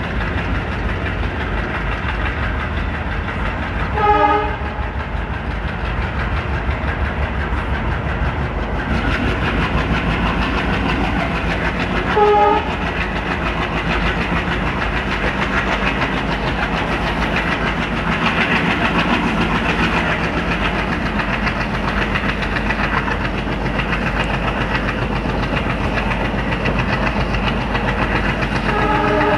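WDM3A diesel locomotive's ALCO engine chugging under load as the train gathers speed, with the ICF coach wheels clattering over the rail joints, growing louder about nine seconds in. The locomotive horn sounds short blasts about four and twelve seconds in, and again at the very end.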